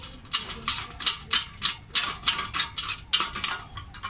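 Light metallic clicks in a quick, fairly even run, about three a second, as a bolt, washer and nut are fitted by hand to a barbecue's steel leg bracket.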